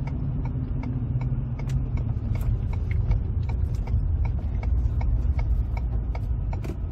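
Steady low road and engine rumble heard from inside a moving pickup truck's cabin, with a scatter of short, light clicks over it.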